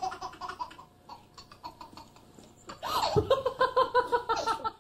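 A baby laughing: a short laugh at the start, then from about three seconds in a long belly laugh of rapid, evenly repeated high-pitched pulses, about six a second.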